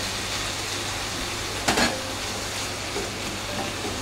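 Sliced pork frying quietly in a pan as chunks of cut daikon radish are tipped in and stirred with chopsticks: a steady low sizzle, with a short clatter about two seconds in.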